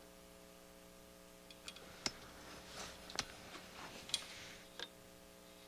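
Light clicks and taps of small hand tools, such as multimeter probes, on a circuit board: about eight to ten scattered over a few seconds, over a faint steady hum.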